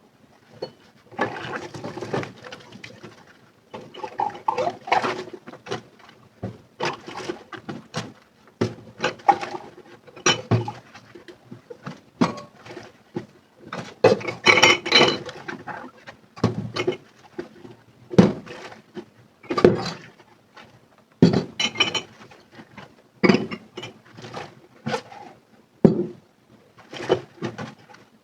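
Dishes and cutlery being washed in a sink: irregular clinks and knocks of crockery and utensils, with stretches of scrubbing or splashing between them.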